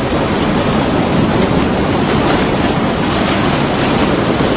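Potato receiving hopper and roller conveyor running, with a steady dense rattle of potatoes tumbling over the rollers.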